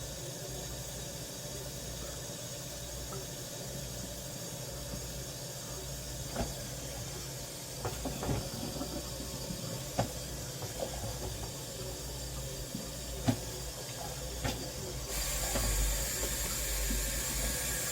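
Small clicks and knocks of kitchen handling over a faint steady hiss, then about three seconds before the end a louder steady hiss of water running into a kitchen sink starts suddenly.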